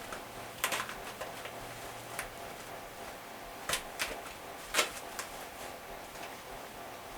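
Packaging being handled during an unboxing: scattered short clicks and rustles, a few sharper ones about two thirds of the way through, the loudest just before the five-second mark.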